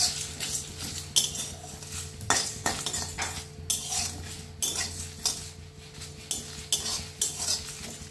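Steel spoon scraping and stirring whole spices, coriander seeds, cumin and dried red chillies, as they dry-roast in a metal kadai without oil: irregular scrapes and clinks of metal on metal with the seeds rattling, over a steady low hum.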